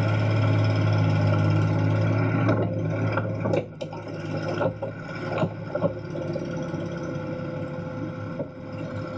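Takeuchi TB135 mini excavator's diesel engine running hard under hydraulic load as the bucket is pressed into mud to lever the stuck machine out. The engine eases off about three and a half seconds in, and a few sharp clunks from the arm and bucket come in the middle, then it runs on more quietly with a thin hydraulic whine.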